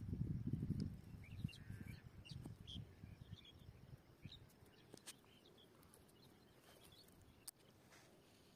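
Faint bird chirps scattered through, over low rustling handling noise that dies away after the first second or so, with two sharp clicks later on.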